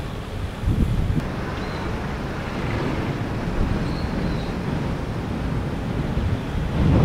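Wind buffeting the microphone outdoors: an uneven low rumbling rush with a steady hiss over it.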